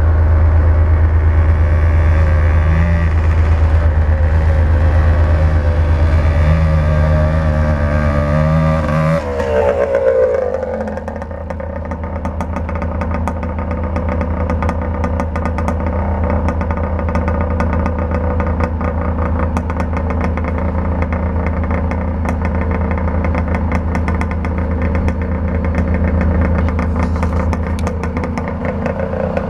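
Suzuki PE 175 two-stroke dirt bike engine running. About ten seconds in, its pitch drops as the engine slows, and it then settles into a steady, quieter run with a fast even ticking.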